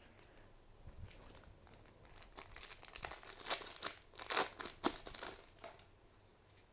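Foil card booster pack wrapper crinkling as it is handled and torn open, a run of irregular crackles that is loudest past the middle and dies away near the end.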